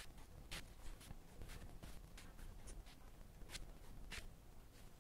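Steel dip-pen nib scratching faintly on paper in short, irregular strokes.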